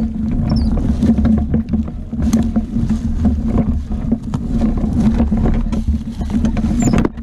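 Small ATV engine running steadily at low speed while crawling over rough trail, with scattered sharp clicks and knocks throughout. The sound drops off suddenly near the end.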